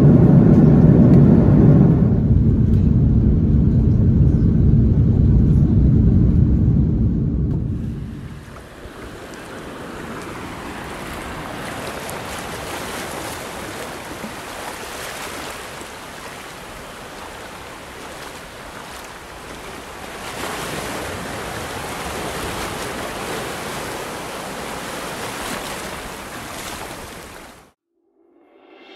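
Steady low drone of a jet airliner's cabin in flight. About eight seconds in it gives way to the steady hiss of shallow waves washing over sand, which cuts off a second before the end.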